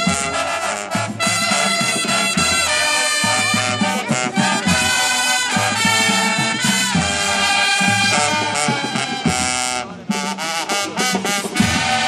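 Marching band playing: trumpets, trombones and a sousaphone over bass drums and percussion, with a brief drop-out about ten seconds in.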